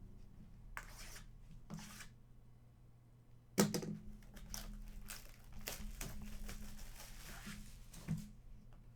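Plastic wrapping being torn open and crinkled on Upper Deck Series 1 hockey card packaging: a few short rustles, a sharp rip about three and a half seconds in, then a longer stretch of crinkling near the end.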